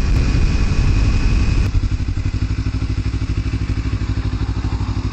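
Kawasaki Ninja 300 parallel-twin engine, heard from the rider's helmet: at first running under loud wind and road rush, then about two seconds in the rush drops away suddenly and the engine settles to an even, pulsing idle as the bike comes to a stop.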